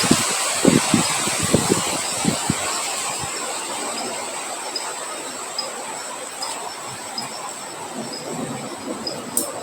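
Wind blowing, gusting hard at first, then easing to a steadier rush that grows quieter. A steady high insect trill and faint regular chirps about twice a second run under it.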